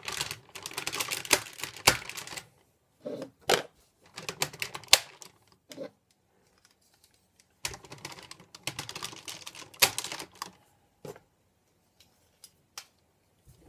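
Hard plastic parts of a combining toy robot being handled and clicked into place: rattling clicks and snaps in three spells with short pauses, then a few single clicks near the end.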